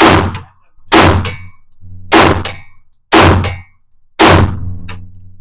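Five handgun shots fired about a second apart, each a sharp crack with a short ringing echo off the walls of an indoor range lane.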